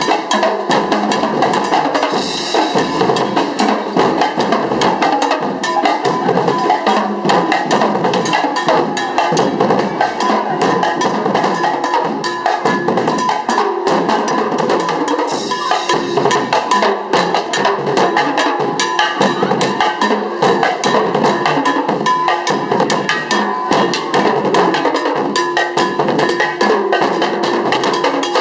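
A troupe of drummers playing stick-struck drums together, a dense, unbroken rhythm of rapid strikes.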